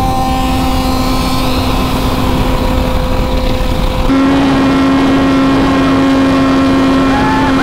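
Sport motorcycle engines held flat out at top speed, about 255 km/h, a steady high engine note under heavy wind rush on an onboard camera. About four seconds in the sound changes abruptly, the engine note louder, as the footage cuts from the Kawasaki Z900's onboard to the other bike's.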